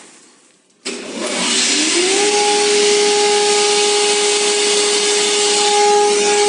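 Beaver 623 six-spindle four-sided moulder switched on about a second in: its spindles spin up with a rising whine that levels off about a second later, then run steadily under a loud rushing hiss.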